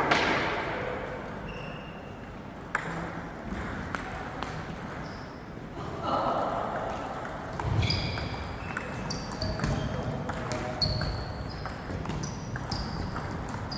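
Table tennis balls clicking off bats and tables in rallies, with sharp ticks at uneven intervals throughout and a loud knock that echoes right at the start. Low chatter in the background, all echoing in a large hall.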